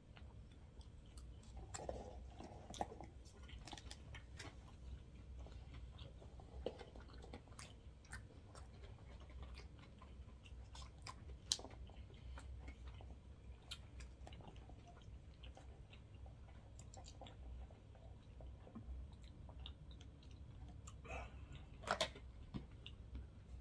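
People chewing sushi, with soft wet mouth sounds and scattered small clicks and taps; the loudest click comes about halfway through, and a short cluster of louder ones comes near the end.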